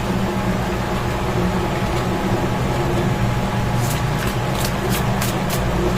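Steady low mechanical hum, with a quick run of light, crisp clicks in the second half: tarot cards being shuffled and handled.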